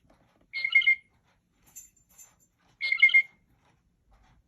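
Blue jay calls played from a Mark Feldstein singing bird clock's speaker as its 3 o'clock bird sound: two short bursts about two seconds apart, each a quick run of three or four ringing notes, with faint high chirps between them.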